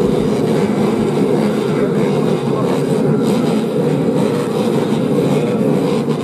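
Several small motorcycle engines running and revving together in a steady, dense din.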